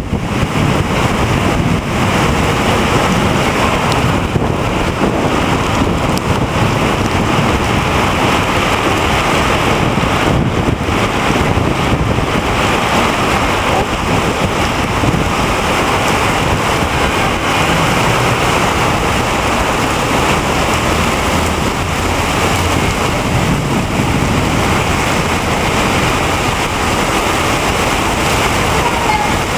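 Heavy rain pouring down in a steady, loud, even rush.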